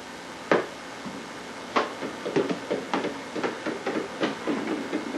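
Irregular sharp knocks and taps: two single ones, then a quicker uneven run from about two seconds in.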